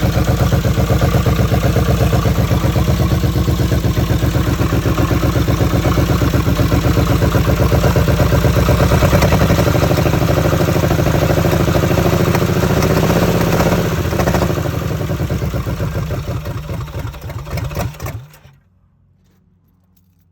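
Chevrolet El Camino engine running loud, with a rapid, even exhaust pulsing from an exhaust leak where the pipe does not fully connect to the manifold. The sound eases off a little after about 14 seconds and cuts off suddenly about 18 seconds in.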